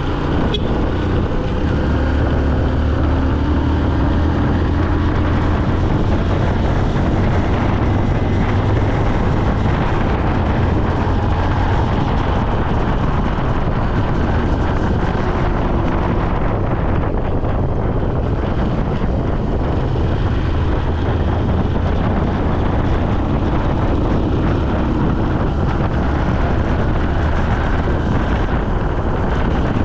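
A vehicle running steadily along a road, with wind noise on the microphone. Faint tones drift in pitch during the first several seconds.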